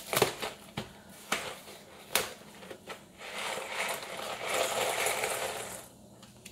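Cardboard shells-and-cheese box being torn open with several sharp snaps. Then a longer crinkling rustle as the foil cheese-sauce pouch is pulled out of the box.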